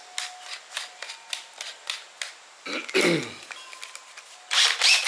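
Rapid sharp clicks, about three a second, from a drill's keyless chuck being tightened onto a spot-weld cutter bit. A brief falling tone about three seconds in, and high chirps near the end.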